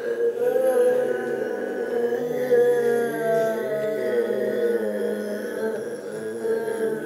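A child's imitation of a massive burp: one long, unbroken, drawn-out belch-like groan at a fairly steady, slightly wavering pitch.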